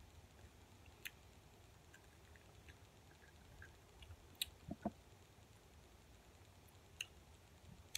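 Near silence with faint chewing of Skittles candy: a few soft, short clicks from the mouth.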